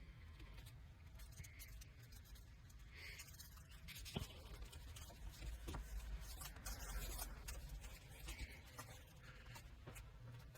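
Faint rubbing and handling sounds, swelling a little in the middle, with a couple of light clicks about four and six seconds in.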